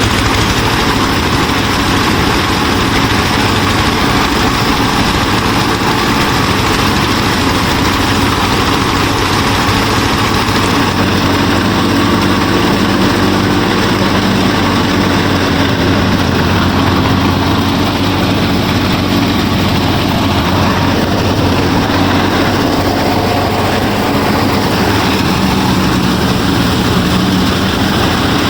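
A small motor-driven machine running steadily, a continuous mechanical drone with dense rattling; its tone shifts slightly about eleven seconds in.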